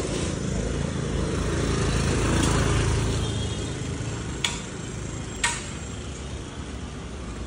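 A motor vehicle engine running close by, growing louder over the first two or three seconds and then fading. Two sharp knocks come about four and a half and five and a half seconds in.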